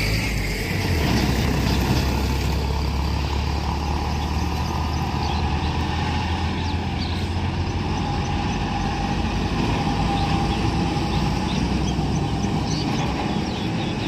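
Container lorry's engine running as it drives past on the road, a steady low rumble with road noise.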